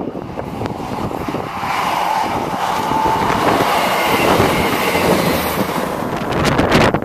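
A train running past at speed, its noise swelling about a second and a half in and fading near the end, with wind buffeting the microphone.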